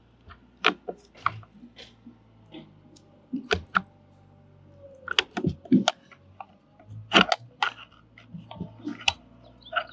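Irregular small clicks and knocks of RV door-lock parts being handled and pushed into place in the door, over a faint steady low hum.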